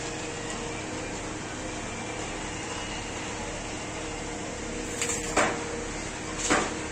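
Construction-site ambience: a steady machine hum over background noise, with a few sharp knocks starting about five seconds in.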